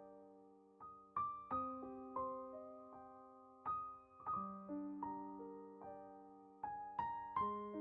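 Soft background piano music: slow broken chords, each note struck and left to ring and fade.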